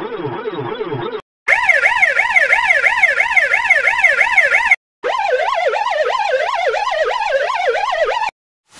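Ambulance siren sound effects, three variations one after another, each a fast up-and-down wail of about three to four cycles a second. A low-pitched one stops about a second in. After a short break comes a higher, louder one, and after another brief gap a similar one with a different tone, which cuts off shortly before the end.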